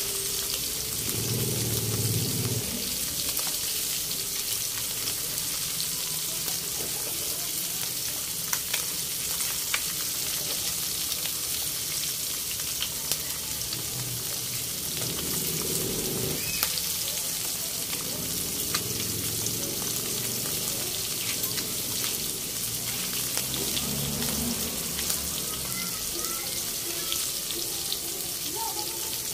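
Whole round scad (galunggong) frying in hot oil in a pan: a steady sizzle with scattered sharp pops and crackles.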